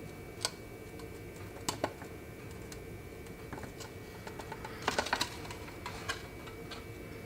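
A few light, scattered clicks and taps from handling the wires and small parts of a dismantled crock pot, with a cluster of them about five seconds in, over a faint steady hum.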